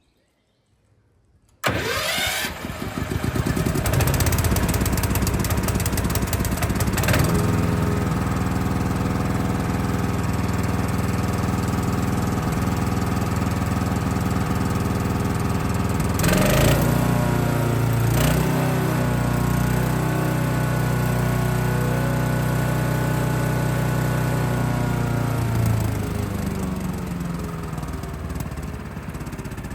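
Forest Master FM14 wood chipper's four-stroke engine starting from cold on choke for its first run. It catches after a short silence, then runs steadily. Its speed steps up a little about two-thirds through, and it slows and quietens near the end.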